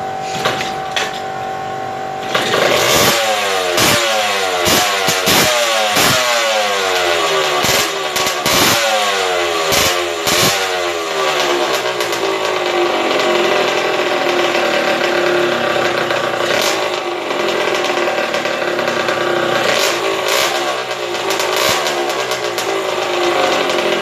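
Yamaha RXZ's two-stroke motorcycle engine. About two seconds in it is revved repeatedly, each rev falling back, with sharp cracks among them; after about ten seconds it settles to steady running.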